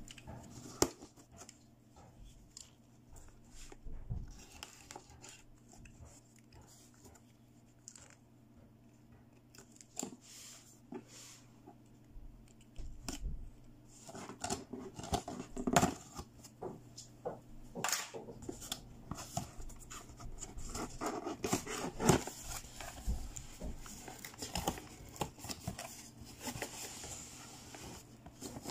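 A small plastic box cutter scraping and slicing along the tape on a cardboard box, with tape tearing and cardboard rustling. The clicks and scrapes come thicker in the second half.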